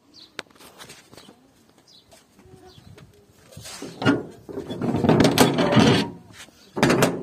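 Metal barrel bolts on a steel gate rattling and scraping as they are slid back by hand. A sharp click comes about half a second in, and the loudest stretch of rattling falls in the middle, with another loud clatter near the end.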